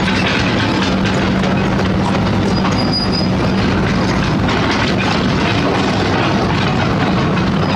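Heavy diesel construction machinery running: a steady engine drone with metallic clanking and clatter over it, and a brief high squeal about three seconds in.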